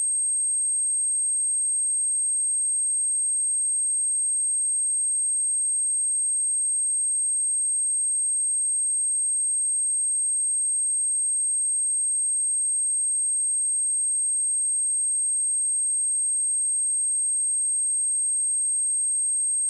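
Steady high-pitched 8424 Hz sine tone, a single pure electronic test tone held at constant level, used as a speaker test and speaker-cleaning tone.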